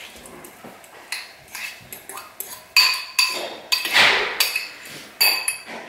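A metal spoon scrapes and clinks against a ceramic bowl as chopped avocado is scooped out into a stainless steel mixing bowl. The steel bowl rings briefly at each knock, with an irregular run of clinks and a longer scrape about four seconds in.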